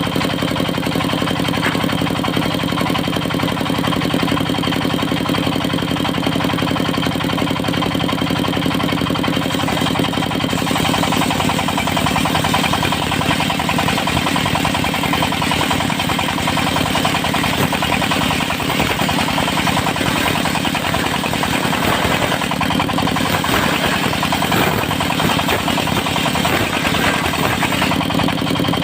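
Engine of a portable circular sawmill running steadily under power. About ten seconds in the sound turns brighter and noisier, and stays that way to the end.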